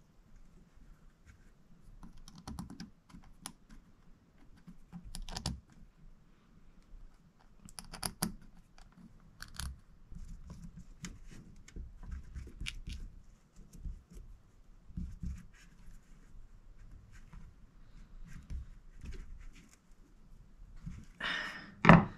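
Small metal clicks and scrapes as the pump cover and diaphragm are fitted to a Tillotson HS chainsaw carburetor and its cover screws are driven with a screwdriver. A louder knock comes near the end.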